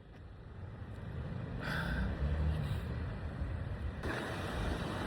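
Steady low rumbling background noise that fades in over the first second or two, with a faint short sound about two seconds in.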